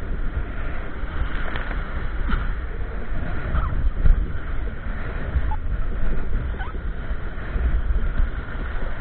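Wind buffeting the microphone in an uneven low rumble, over water sloshing around a kayak.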